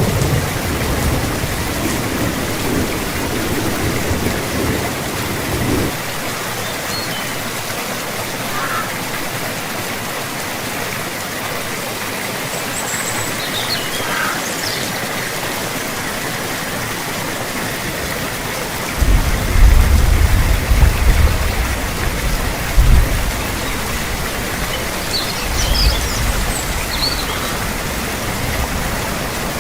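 Steady rain falling, an even hiss throughout, with low rumbles of thunder during the first few seconds and again from about two-thirds of the way in. A few faint bird chirps come through near the middle and near the end.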